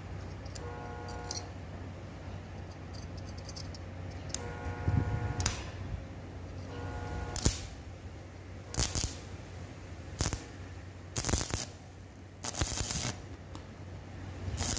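Stick (arc) welder striking short tack welds on a stainless pipe grill handle: a run of brief crackling bursts of arc hiss, each under a second, starting about four seconds in and recurring every second or so.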